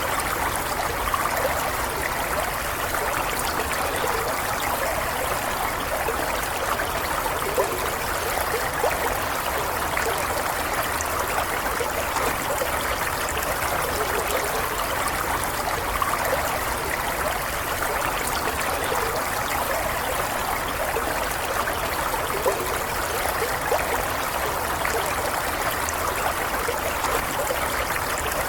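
Shallow stream running over stones, a steady babbling and trickling rush with no pauses.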